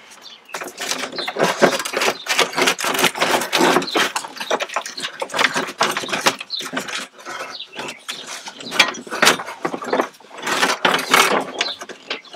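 Plastic dashboard of an EG Civic hatchback being wrestled loose and lifted out of the car: a continual clatter of plastic clicks, creaks and knocks against the frame and wiring.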